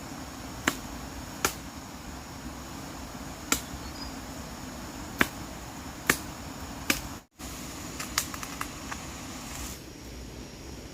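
Scattered sharp knocks, single and irregularly spaced a second or two apart, over a steady background hiss, with the sound cutting out completely for a moment about seven seconds in.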